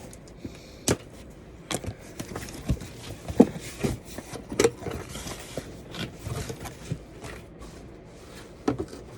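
A cardboard box being opened and its packaging handled: irregular knocks and clicks with scraping and rustling of cardboard.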